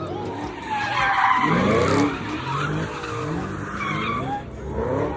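A car engine revving up and down several times while the tyres squeal and skid, as the car slides in donuts.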